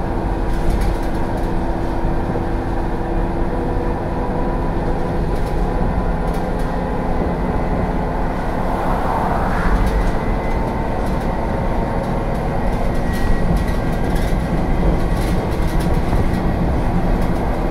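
Running noise inside the saloon of a 2007 ADL Enviro 400 double-decker bus under way: its replacement engine drones steadily under road noise, with light clicks and rattles from the body. About nine seconds in the pitch briefly rises.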